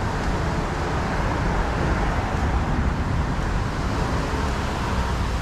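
Steady city traffic noise: cars driving on a rain-wet road, with a constant low rumble and tyre hiss.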